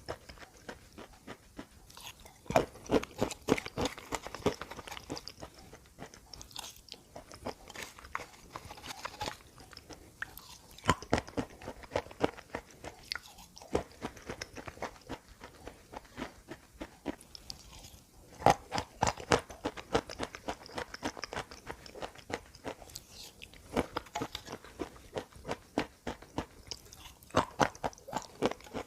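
Close-miked biting and chewing of hard, crunchy edible chalk or clay, crackling loudly in bursts every several seconds, with quieter chewing between.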